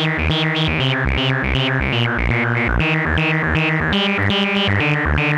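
PAiA Fatman analog synthesizer playing a quick repeating sequence of short pitched notes, about four or five a second, each note brightening as it sounds, with effects added in Ableton.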